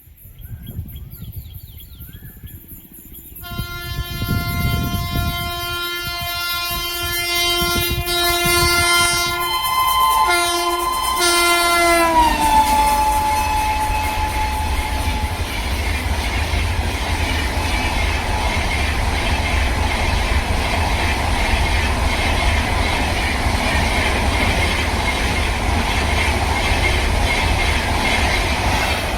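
Locomotive horn sounding one long blast as a train approaches at speed, its pitch dropping sharply as it passes about twelve seconds in. The coaches then rush past with a steady rumble and the clickety-clack of wheels on rail joints.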